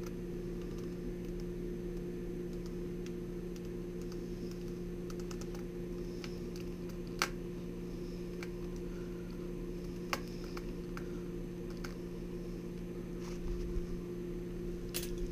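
Small clicks and taps of hands fitting wires into a controller board's screw terminals, a few of them sharper, over a steady electrical hum.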